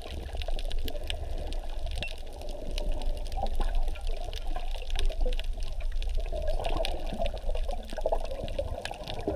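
Water splashing and sloshing, with small scattered clicks, over a steady low rumble.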